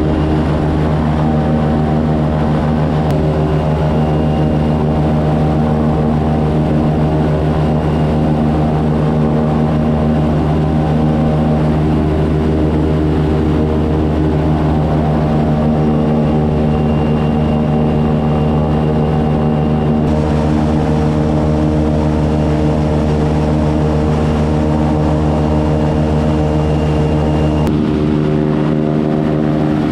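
Airboat's 383 stroker small-block Chevy V8 and its propeller running steadily at cruising speed, a constant loud drone.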